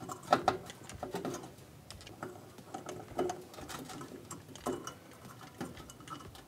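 Phillips screwdriver backing out the small screws that hold the surface igniter to a gas range's burner base: a string of light, irregular clicks and taps of metal on metal, the sharpest about a third of a second in.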